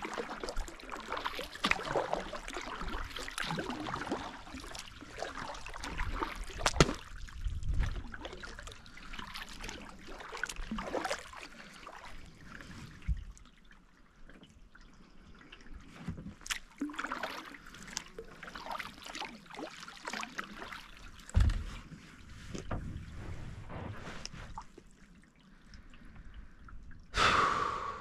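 Kayak paddling: water dripping and trickling off the paddle blades with small splashes at each stroke. A brief louder sound comes near the end.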